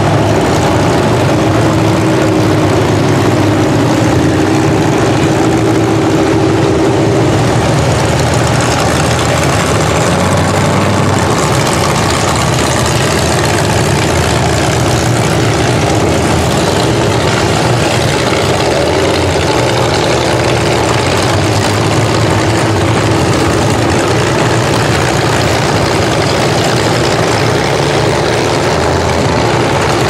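Engines of several demolition derby cars running, a loud, steady engine noise as the cars idle and pull slowly past one after another.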